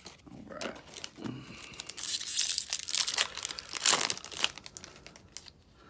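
Foil wrapper of a Magic: The Gathering booster pack being torn open and crinkled by hand. The crackling starts about two seconds in, is loudest near four seconds, and fades soon after.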